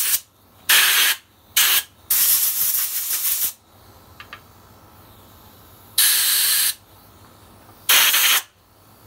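Compressed-air blow gun firing about six short blasts of air into a carburetor, blowing out the freshly tapped idle-screw hole. The blasts are loud hisses; the longest lasts about a second and a half, and the last two come after a pause of a few seconds.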